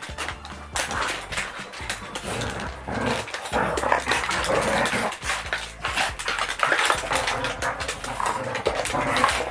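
Two dogs play-fighting at close quarters: a busy, irregular jumble of scuffling and dog play noises, with many small knocks and clicks.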